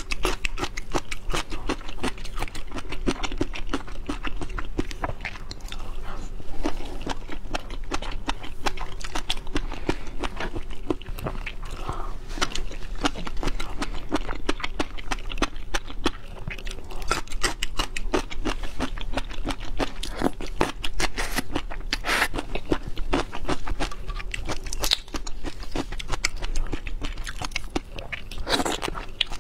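Close-miked chewing and crunching of seafood: a dense, irregular run of crisp clicks and wet mouth sounds. Near the end a shrimp is pulled apart by hand.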